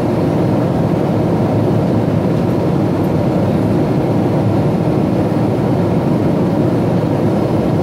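Steady cabin noise of a Boeing 777-200ER airliner in flight, heard from inside the passenger cabin: a dense, even rumble of airflow and engines with no changes.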